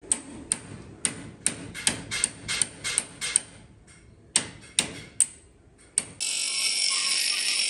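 Hammer striking a steel punch held on a motorcycle drum brake shoe clamped in a steel bench vise: about a dozen sharp metallic strikes, with a short pause midway. Near the end the strikes stop and a steady high hiss takes over.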